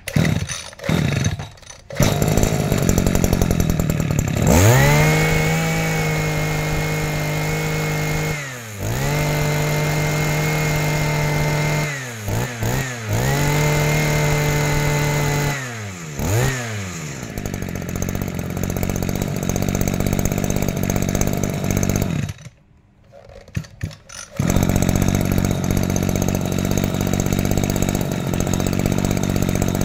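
Makita MEM262W two-stroke brush-cutter engine pull-started, catching within about two seconds. It is revved up to a high steady pitch three times, dropping back between, then settles to a lower idle. About twenty-two seconds in it cuts out, is pulled twice more and runs again.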